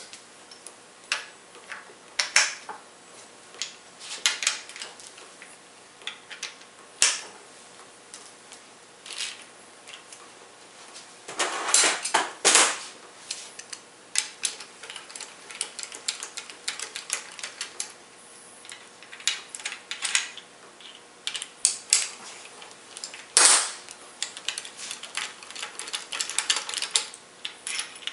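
Irregular metallic clicks and clinks of a 13 mm socket on a speed-brace handle being fitted to and turning out the 8 mm bolts of a Rotax 582 gearbox's aluminium housing. Louder clattering comes about 12 seconds in and again near 23 seconds.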